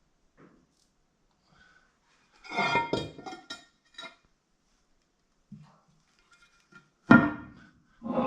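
Metal water pump parts clinking and clattering as the pump and its housing are handled and set together, with a sharp metallic clank about seven seconds in.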